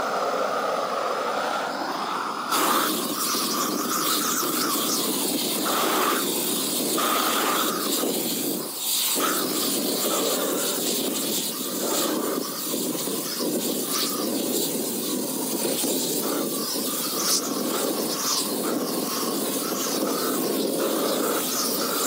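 IdealGas 171725 propane weed torch burning with a steady rushing hiss, the sound growing fuller about two and a half seconds in. Wind buffets the phone microphone.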